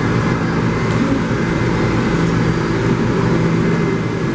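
New York City subway train standing in the station with its doors open, its onboard equipment giving off a steady, loud low hum.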